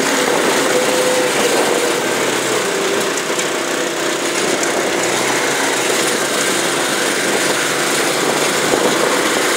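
Utility vehicle's small engine running steadily as it drives slowly across a soft, wet field, heard from the open driver's seat, with a constant hissing noise over it.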